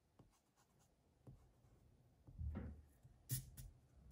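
White eraser rubbing lightly back and forth on drawing paper, taking off pencil lines: faint scratchy strokes, then a louder rub with a dull knock of the hand on the paper about two and a half seconds in and a sharp tick shortly after.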